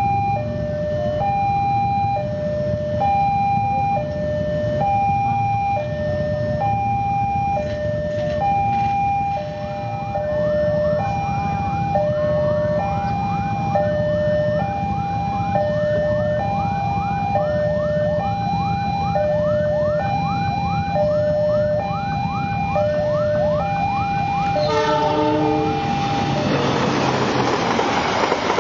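Railway level-crossing warning alarm sounding a steady two-tone chime, high and low tones alternating about once a second, with a fast repeated rising chirp over it through the middle. Near the end a train horn blows briefly, and the train's rushing wheel and rail noise swells as it passes.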